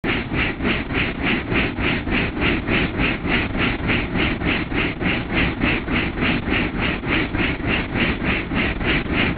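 Helicopter in flight: a steady engine and rotor rumble with a regular beat of about three pulses a second.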